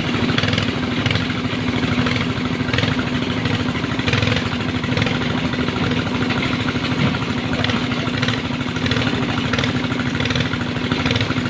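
Excavator's diesel engine running steadily at working speed, with a steady droning hum.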